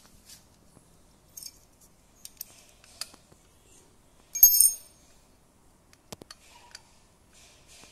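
Light metallic clicks and clinks as the bolts of the oil filter cover on a Suzuki Raider 150 engine are unscrewed and handled, with one bright, ringing clink of metal on metal about halfway through.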